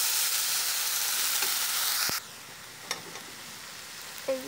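Malabar spinach and other vegetables frying in hot oil in a pan as they are stirred with a spatula. A strong, even sizzle drops off suddenly about two seconds in, leaving a quieter sizzle with a few clicks of the spatula against the pan.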